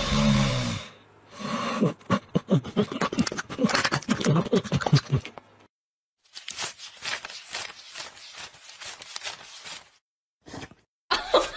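A stack of paper banknotes thumbed through by hand, a quick run of dry rustling flicks. Before it comes a separate, louder stretch of rapid irregular clicks and crackles.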